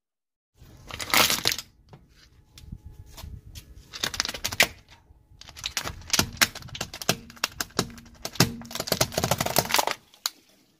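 A car tyre rolling over and crushing brittle objects: bursts of crunching and crackling, then a dense run of sharp cracks and pops in the second half.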